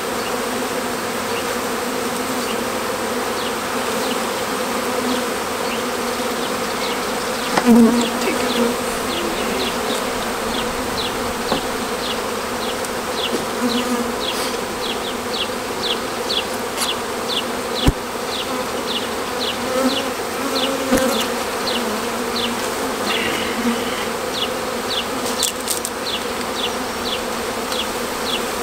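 A honeybee swarm humming steadily around its cluster in the tree and over an open hive box, the bees astir while being hived, briefly louder about eight seconds in. From about six seconds on, short high chirps repeat about twice a second behind the hum.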